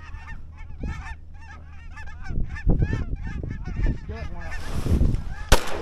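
A flock of cackling geese calling overhead, a quick run of short high honks one after another. A shotgun shot cracks near the end.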